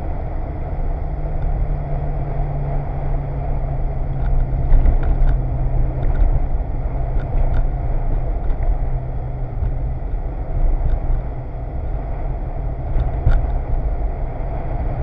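BMW E30 rally car's engine running steadily at speed, heard from inside the car, with tyre and road noise from the wet tarmac.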